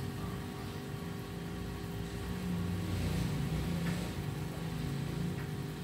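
Steady low mechanical hum, growing a little louder in the middle.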